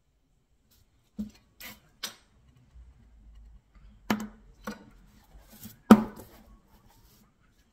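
A handful of sharp taps and clicks from small art tools and the painted board being handled on a cardboard-covered tabletop, the loudest knock coming about six seconds in as the board is lifted.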